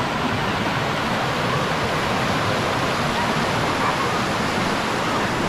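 Waterfall pouring down granite ledges: a steady, even rush of falling water.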